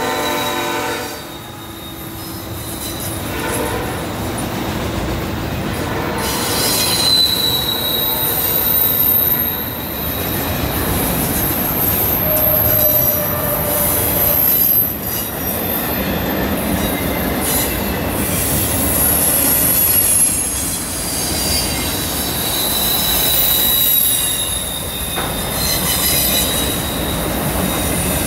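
Freight train rolling past on a curve: steel wheel flanges squeal against the rail in high tones that come and go over the steady rumble and clatter of autorack cars. The locomotive horn's chord fades out in the first second.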